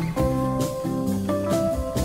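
Background music: a tune of held, plucked-sounding notes that change every half second or so, over a steady beat of about two hits a second.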